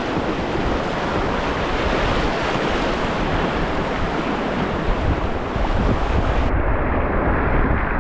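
Loud, steady rushing and churning of a whitewater rapid at high flow, heard from right on the water in a kayak. About six and a half seconds in, the sound suddenly turns muffled and loses its hiss.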